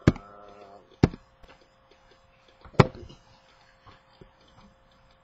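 A man yells, a short held shout close to the microphone, while the computer and webcam are knocked: three sharp thumps, one with the shout, another about a second later and the loudest nearly two seconds after that, with light ticks of handling in between.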